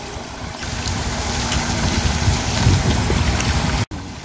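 Wind buffeting the microphone over a faint, steady low motor hum. The sound cuts out for an instant near the end.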